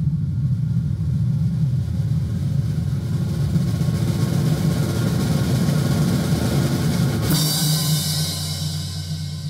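Theatre orchestra music: a low rumbling drum roll under a hissing cymbal roll that swells, cut off by a cymbal crash about seven seconds in, after which a low chord holds and fades.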